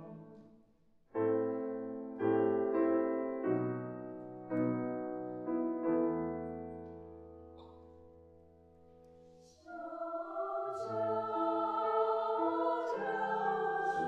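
A mixed choir's phrase fades out, then a grand piano plays a short interlude of about six struck chords that ring down almost to quiet. About ten seconds in, the choir comes back in singing over the piano.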